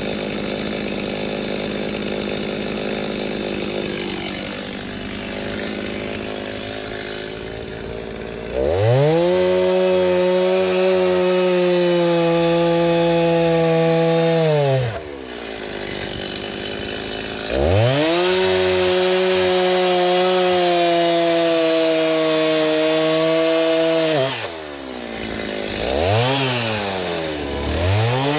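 Two-stroke chainsaw cutting seasoned oak logs into firewood. The engine runs at high, steady revs for about six seconds at a time, twice, dropping back between, with a short rev up and down near the end.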